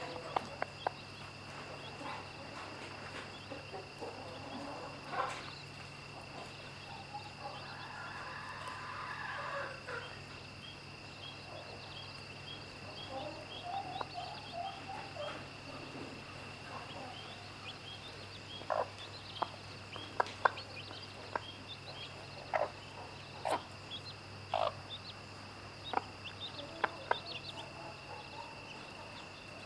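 Mother hen clucking in short, low notes while her chicks peep faintly, over a steady drone of insects. The clucks come more often in the second half.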